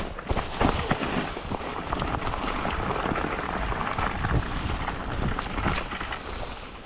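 Mountain bike tyres rolling fast through a thick layer of dry fallen leaves on a dirt trail: a continuous crunching rustle, with scattered clicks and knocks from the bike over the ground.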